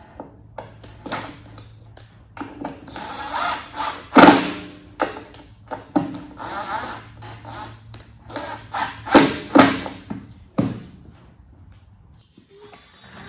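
Cordless drill driving screws into the wooden sewing table, in short bursts of the motor. There are several sharp knocks, the loudest about four seconds in and twice near nine seconds.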